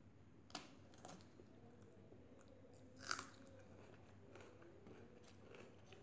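A person chewing and crunching food, quietly, with a few short sharp clicks; one louder crunch or click comes about three seconds in.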